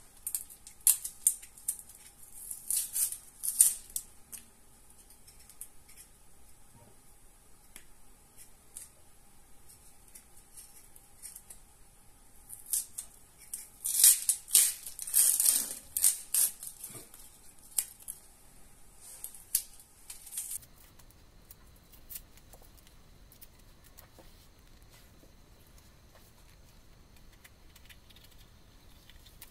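Hands handling things at a kitchen counter: two spells of sharp crinkly rustles and clicks, one at the start and a louder one from about twelve to seventeen seconds in, then only faint room tone.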